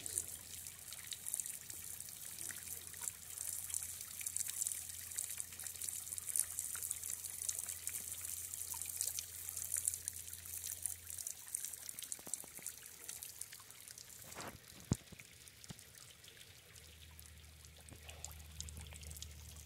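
Pond water trickling and lightly splashing as a net full of small koi is lowered and emptied into the water. The splashing eases a little past halfway, and two sharp clicks come a few seconds later.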